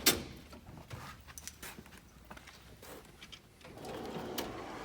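Handling noise in a metal toolbox drawer: one sharp knock, then scattered light clicks and taps as the drawer dividers and loose contents are moved.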